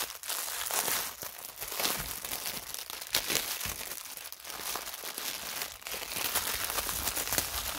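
Plastic wrapping crinkling and crackling as hands handle a plastic-wrapped bundle of bagged diamond-painting drills and press on the clear plastic film covering the canvas.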